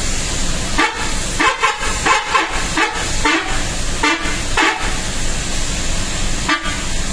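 Bus 'telolet' multi-tone musical horn sounded in about ten short toots at different pitches, bunched in the first five seconds with one more near the end, over a steady background noise.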